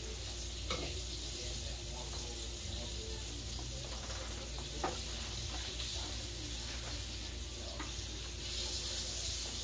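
Metal spoon spreading and scraping shredded lettuce and cilantro along a long sub roll, with a few light clicks of the spoon, the sharpest about halfway through, over a steady background hiss and low hum.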